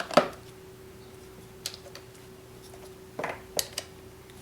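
About five light clicks and taps from parts being handled, loudest near the start and a little after three seconds in, over a faint steady hum.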